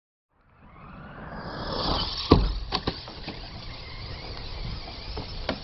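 Bwine C11 RC truck's electric drive motors whining as it speeds up, with a loud sharp knock about two seconds in and several lighter knocks after it.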